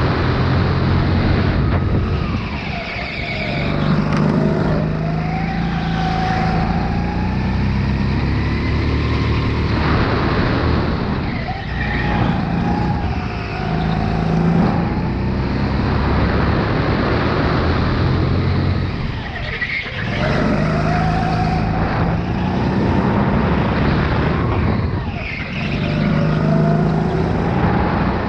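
Sodi RX8 go-kart's engine heard from on board at full throttle. It revs up along the straights, then drops off each time the kart lifts and brakes for a corner, several times over.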